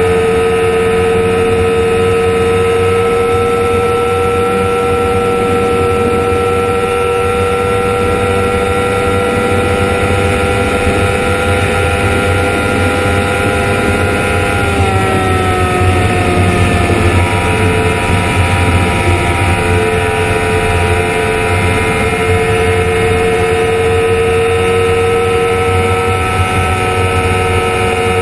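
Honda CBR1000RR inline-four engine running hard at high revs at around 250 km/h, its pitch creeping slowly upward, dipping about halfway through as the throttle eases, then climbing again. Heavy wind rush on the microphone runs under the engine.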